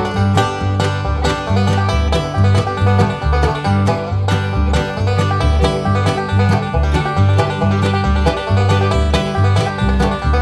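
Background music: upbeat bluegrass-style tune with banjo and a steady bass line.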